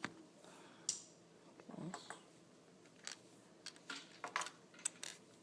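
LEGO plastic bricks being handled and fitted together: a scattering of small sharp clicks and taps, several of them close together near the end.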